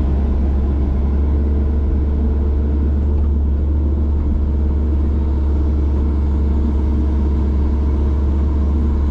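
Hitachi excavator's diesel engine running at a steady speed, heard from inside the cab.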